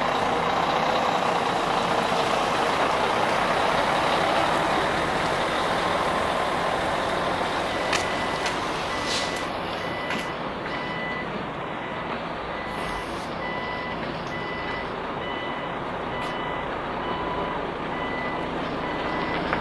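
A heavy truck's diesel engine runs as a tractor unit with a container trailer manoeuvres, growing fainter over the first half. From about eight seconds in, a reversing alarm beeps at a steady, even pace.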